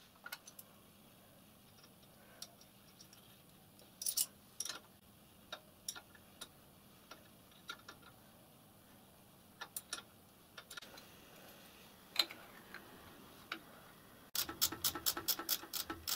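Small metal clicks and taps of brass pipe fittings and a spanner being worked on a model locomotive's oil manifold, then a fast run of clicks, about five a second, near the end.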